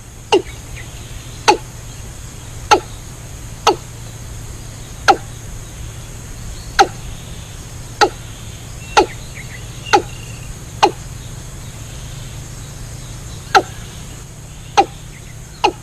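A series of sharp knocks, about one a second with irregular gaps and a pause of a few seconds in the middle, over a steady low hum.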